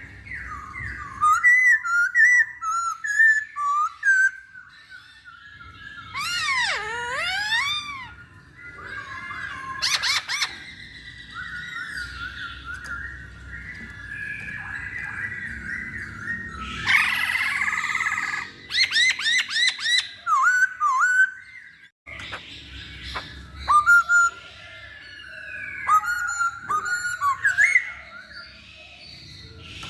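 Chinese hwamei (poksay Hongkong) singing a long, varied song of loud whistled phrases, sliding up and down in pitch, broken by quick rattling trills, with a short pause about two-thirds of the way through.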